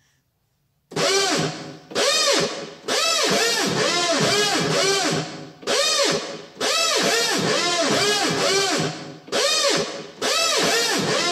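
Keyboard synthesizer playing a sampled patch in short phrases, its pitch swooping up and down about three times a second. It comes in about a second in and breaks off briefly every couple of seconds.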